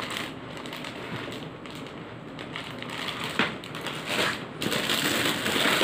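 Clear plastic garment packaging crinkling and rustling as it is handled, getting louder near the end.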